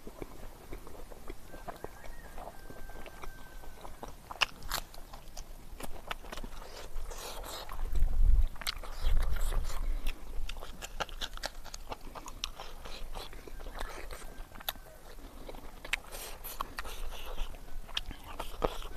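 Close-up eating sounds of a person eating rice and chicken curry by hand: wet chewing, lip smacks and small crunchy bites, many short clicks. A louder low rumble about eight seconds in.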